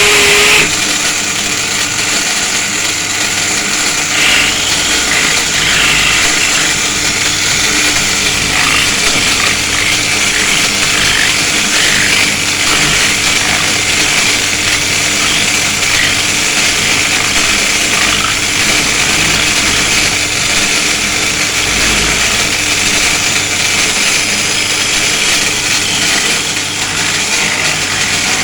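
An angle grinder running steadily while a power drill bores into its housing.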